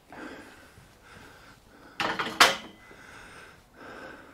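Metal workshop items being handled: soft rattling and two sharp metallic knocks about two seconds in, half a second apart.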